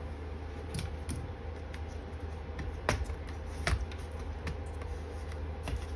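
Scattered small clicks and taps of hands and tools on a laptop's chassis as its battery is unscrewed and unplugged, over a steady low hum; the sharpest clicks come about halfway through.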